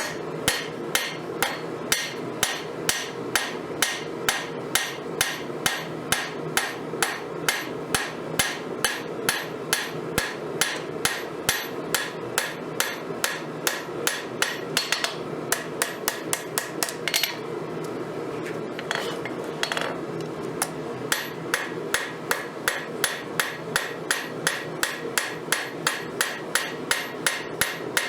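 Hammer blows on hot steel at the anvil, forging a knife blade from a broken crescent wrench: steady strikes about two a second, with a short break about two-thirds of the way through, over a steady background noise.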